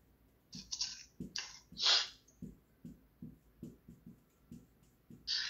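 Marker pen writing on a whiteboard: a few short scratchy strokes in the first two seconds, then a string of faint short strokes, about three a second.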